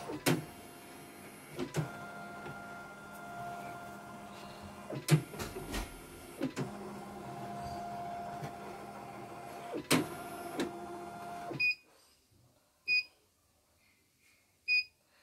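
CNY portable computerised embroidery machine driving its large hoop through a test movement: a steady motor whir with several sharp knocks as the carriage moves, which stops suddenly about three-quarters of the way through, followed by two short high beeps. The machine, repaired after going completely dead, is running normally.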